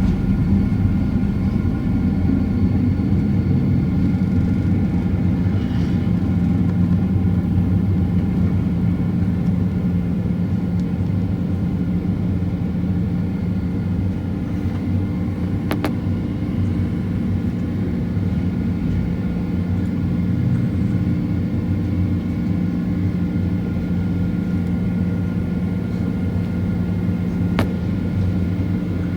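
Steady cabin drone of a Boeing 767-400ER airliner, heard from inside the passenger cabin: engine hum with several steady tones over a low rumble and air noise.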